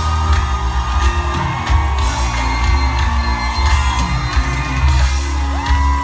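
Loud live concert music through the PA with a strong bass, and the crowd whooping and yelling over it.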